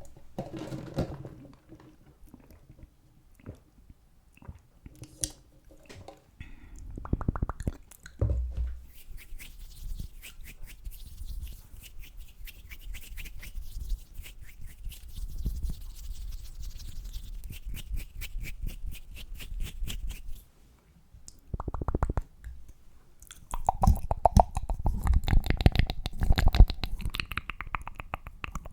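Close-miked ASMR mouth sounds and fast tapping: scattered wet clicks and soft thumps, then long runs of rapid, evenly spaced taps and clicks. The runs break off briefly about two-thirds of the way through and resume near the end.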